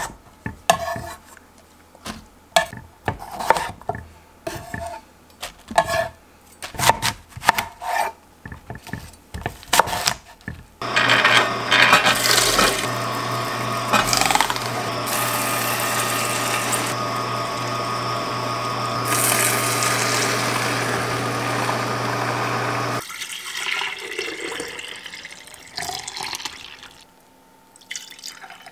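A kitchen knife chopping green papaya on a wooden cutting board: a quick series of sharp knocks. About eleven seconds in, a stainless steel juicer starts and runs steadily with a low hum for about twelve seconds as apple and papaya are pushed through it, then stops. Near the end, green juice is poured from a pitcher into a glass jar.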